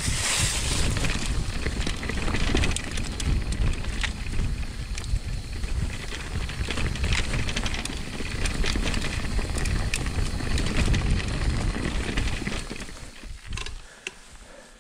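Orbea Rise e-mountain bike ridden over a rough trail: tyres crunching over stones and gravel with constant small clicks and rattles from the bike, under low wind buffeting on the helmet or chest camera's microphone. The noise drops away briefly near the end.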